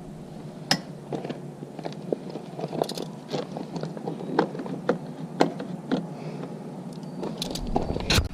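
Irregular small metallic clicks and taps of wrenches working the clutch cable adjuster nuts as the jam nut is snugged down, with a sharper knock near the end.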